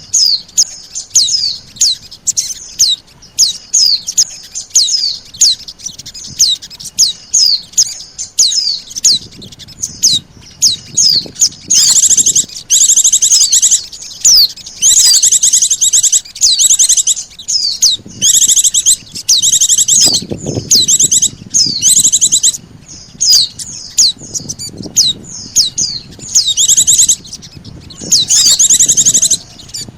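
Bird-lure recording of pleci (white-eye) and sogon calls: a fast series of short, high down-slurred chirps about twice a second, giving way about twelve seconds in to repeated dense, high trilled phrases about a second long.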